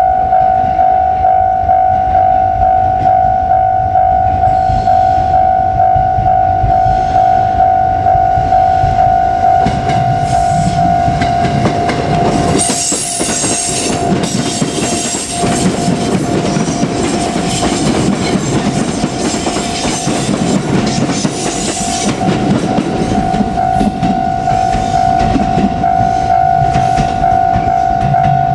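A Japanese level crossing's electronic warning bell ringing in a steady repeating rhythm. From about ten seconds in to about twenty-two seconds, a JR Kyushu 787-series limited express train runs over the crossing with a loud rumble and rushing hiss of wheels on rail, then the bell rings on alone.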